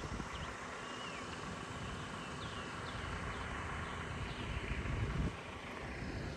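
Outdoor bushland ambience: wind rumbling irregularly on the microphone, with a few faint short bird chirps.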